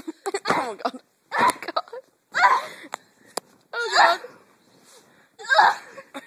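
A girl's loud wordless vocal outbursts: five or so short cries spaced about a second apart, with a sharp click about halfway through.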